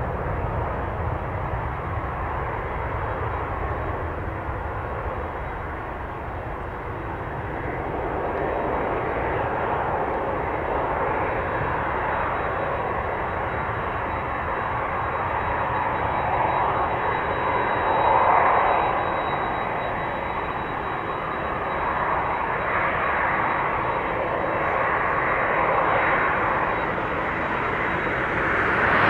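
Boeing 787-8 Dreamliner's twin jet engines at takeoff power as the airliner rolls, lifts off and climbs away: a steady rushing jet noise that swells twice, about two-thirds of the way in and loudest at the very end.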